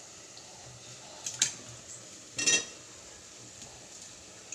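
Metal spoon clinking against an aluminium cooking pot twice, about a second apart, the second knock ringing briefly.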